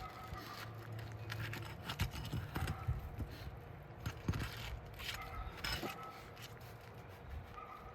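Asphalt roof shingle being pried and worked loose: irregular scraping and sharp crackling clicks as its seal strip is broken.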